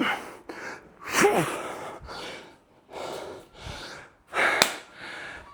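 A man breathing hard in short, forceful exhales, with a falling grunt about a second in and a sharp burst near the end: heavy exertion during a high-rep set of snatches.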